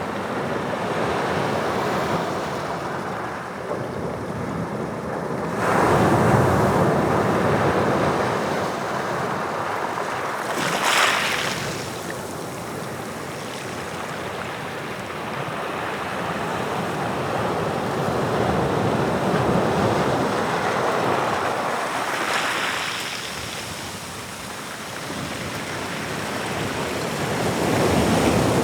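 Atlantic waves breaking on the shore, the surf swelling and ebbing every several seconds, with a sharper, hissing crash about eleven seconds in.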